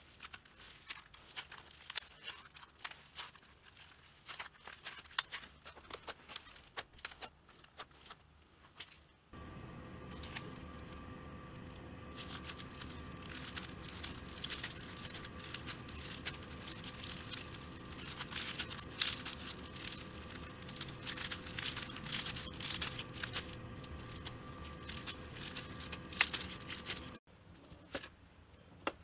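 Foam-bead slime (floam) being squeezed and kneaded by hand, giving dense crackling and popping clicks. About nine seconds in the sound changes: a steady hum runs under the crackling, and it drops out again near the end.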